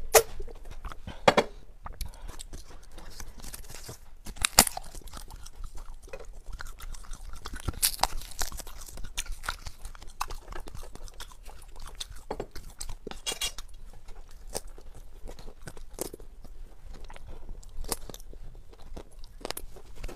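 Close-miked mukbang eating sounds: a person chewing food with a run of sharp crunchy bites, the loudest near the start and about four and a half seconds in.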